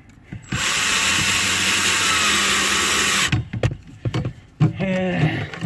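Cordless drill running for about three seconds, driving a self-tapping screw into a holster mount, then stopping suddenly. A few clicks follow.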